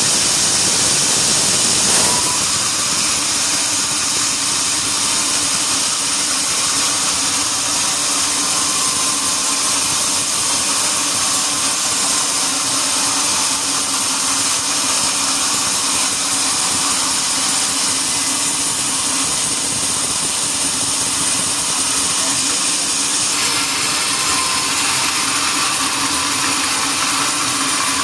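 Sawmill machinery running steadily: an even motor hum under a loud, constant hiss, with a sharp click about two seconds in and a slight change in the hiss near the end.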